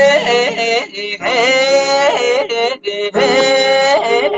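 Male voice singing long held notes with ornamented turns and bends, in about three phrases separated by short breaths.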